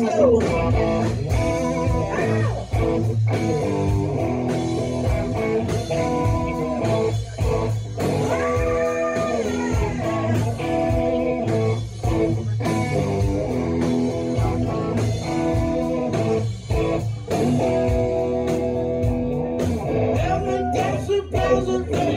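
Blues-based rock music led by electric guitar, over a steady bass line and drum beat.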